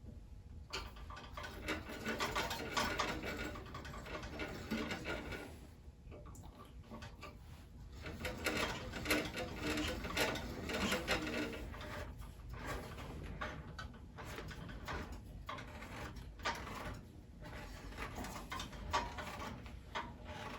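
Craftsman 12-inch bandsaw's wheels spun by hand with the blade on, a mechanical whirring rattle in two long spells, checking that the blade tracks centred on the new urethane tires. After that come scattered clicks and knocks of handling and adjustment.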